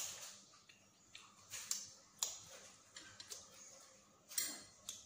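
Quiet eating sounds: half a dozen short, sharp clicks and taps at irregular intervals.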